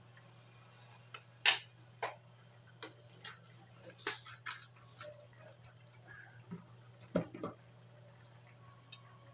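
A metal ladle knocking against an aluminium wok as it is set down, loudest about a second and a half in. Scattered light clicks and taps follow a few seconds apart over a steady low hum.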